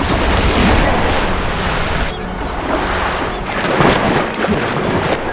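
Sea water splashing and surging, swelling in waves and loudest a little before the four-second mark.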